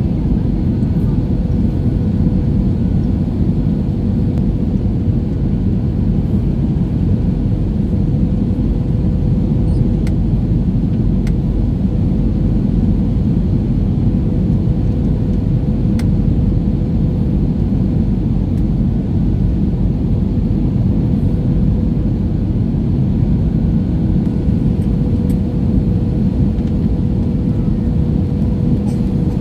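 Jet airliner cabin noise at a window seat: a steady low rumble of engines and rushing air, with a thin steady hum through it, as the plane descends toward landing.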